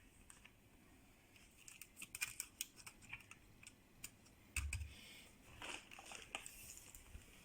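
Faint scattered clicks and light taps of small objects being handled, with one dull low thump about four and a half seconds in.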